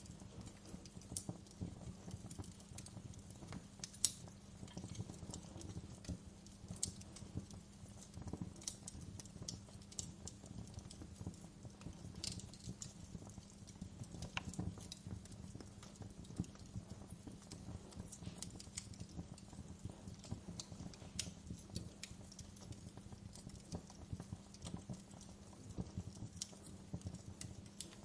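Wood fire burning in a fireplace, crackling with irregular sharp pops and snaps over a faint steady hiss and low hum; the loudest pop comes about four seconds in.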